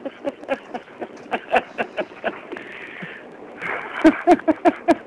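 People laughing in quick repeated 'ha-ha' bursts, about four or five a second, breaking off for about a second midway and then starting again.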